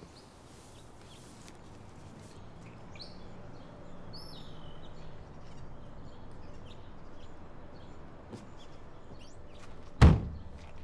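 Birds chirp now and then over a quiet outdoor background. Near the end a car door is slammed shut once, loudly.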